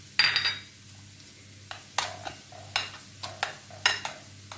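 Metal spoon stirring and scraping against a ceramic plate, mixing wet tomato sauce with chopped coriander and parsley. A string of short clinks and scrapes, the loudest just after the start.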